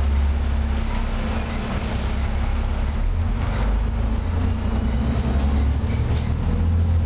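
Volvo B7TL double-decker bus heard from inside on the upper deck while driving: a steady, deep drone from its six-cylinder diesel engine, mixed with road and body noise.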